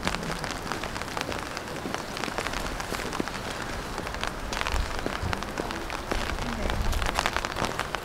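Steady rain pattering, full of small drop ticks. A low rumble swells in the second half.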